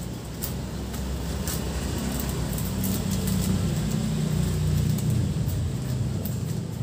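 Plastic fruiting bags crinkling, with short clicks as a long metal rod works grain spawn against the plastic sides. Under it, a low rumble swells through the middle and eases near the end.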